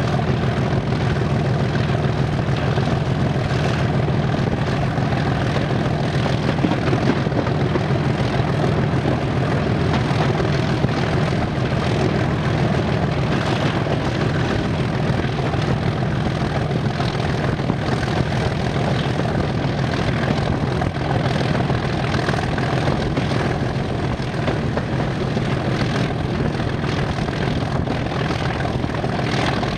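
British Rail Class 47 and Class 37 diesel locomotive engines running steadily, a continuous deep engine drone with no rise or fall.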